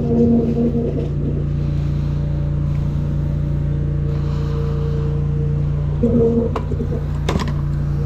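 High-pressure drain jetter running steadily: a low engine hum with a whine that comes and goes. Two sharp knocks near the end.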